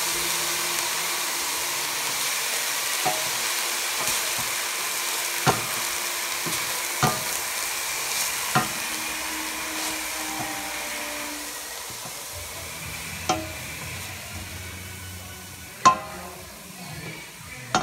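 Ground beef sizzling in olive oil in a stainless steel pot while a wooden spoon stirs it, with about half a dozen sharp knocks of the spoon against the pot, the loudest near the end. The sizzle fades over the second half.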